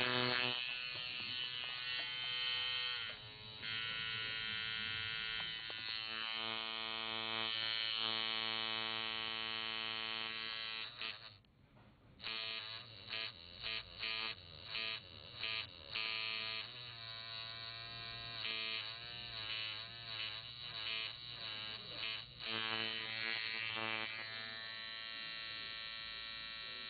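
Workhouse Bronze Gun II coil tattoo machine buzzing as it runs. About eleven seconds in it stops briefly, then starts and stops in several short bursts. Its pitch wavers for a few seconds before it settles into a steady buzz again.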